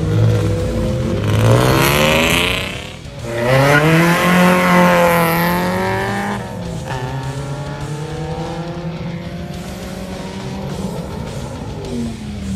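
Modified cars pulling away hard one after another, engines revving up with a short tyre squeal about two seconds in. A second, louder car accelerates hard from about three and a half seconds, rising in pitch, and after that quieter engines run on steadily.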